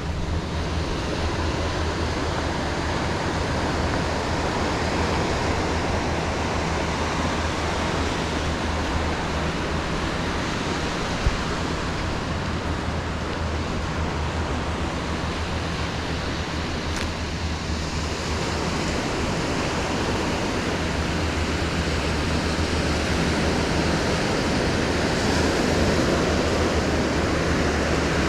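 Steady rushing outdoor ambience, an even wash of noise over a low hum, with a single sharp click about eleven seconds in.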